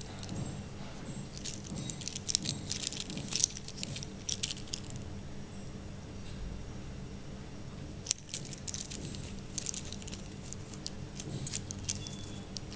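Metal link bracelet of a wristwatch jingling and clinking as the watch is handled and turned over in the hand, in two spells of rapid clinks with a short lull between them.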